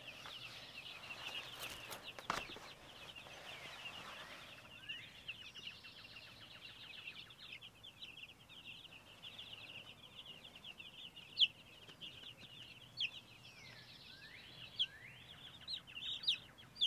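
A brood of Cornish cross meat chicks peeping continuously, a dense high-pitched chatter of many overlapping peeps, with a few louder single peeps standing out in the last several seconds. A light knock sounds about two seconds in.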